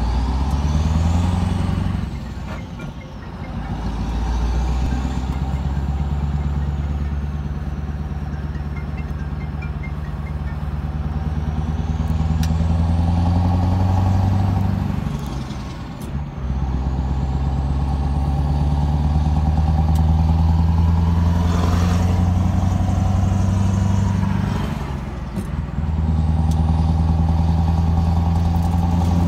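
Scania R500 V8 diesel truck with an open straight-pipe exhaust, heard from inside the cab, pulling through the gears. The engine note climbs slowly, then drops with a brief lull at each gear change: about two seconds in, halfway, and a few seconds before the end.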